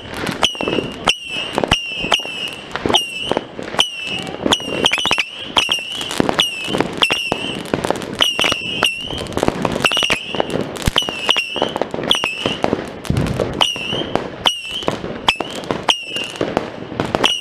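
A dense barrage of New Year's fireworks and firecrackers: sharp bangs several times a second, many of them followed by a short high ringing chirp.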